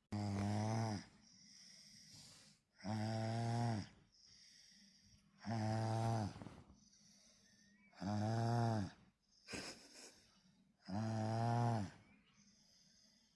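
A sleeping child snoring: five loud, pitched snores, one about every two and a half to three seconds, with a fainter sound between them.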